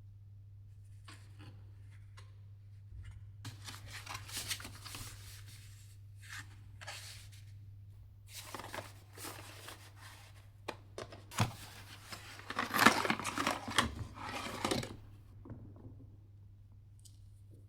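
Paper and plastic packaging rustling and crinkling in irregular bursts as headphone accessories are handled: a printed manual, then a cable taken from its wrapping. The bursts come in two spells, the second and louder one with a sharp click, over a faint steady hum.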